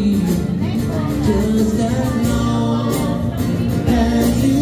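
Live band playing with a singer: held sung lines over steady bass, with drums and cymbals striking through.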